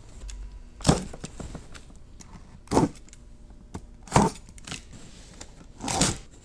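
Utility knife slitting the packing tape along the top of a cardboard box: four short slicing strokes spaced one and a half to two seconds apart, with light knocks and rustles from the cardboard being handled between them.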